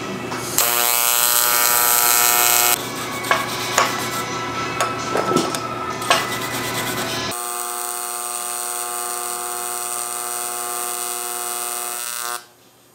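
AC TIG welding arc on aluminium, a steady electric buzz for about two seconds. Then a hand brush scraping over the aluminium joint, with a few sharp knocks. Then the arc buzzes again for about five seconds and cuts off suddenly near the end.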